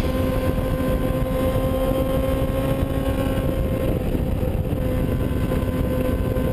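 Sport motorcycle engine running at a steady high cruising speed, its note holding even, under a heavy rush of wind and road noise.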